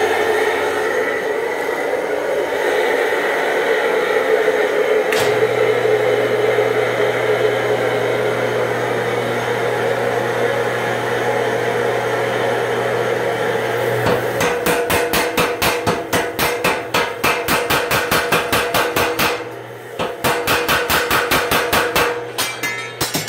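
A steady hum, then about fourteen seconds in a home-built power hammer starts striking a hot steel billet in fast, even blows, several a second. It stops briefly near the end, then starts again.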